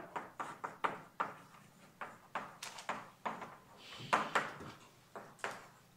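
Chalk tapping and scratching on a chalkboard as words are written: a quick, irregular run of short, sharp clicks and brief scrapes.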